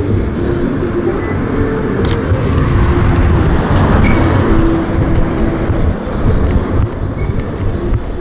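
Low, fluctuating rumble of city street noise, with faint steady tones coming and going underneath.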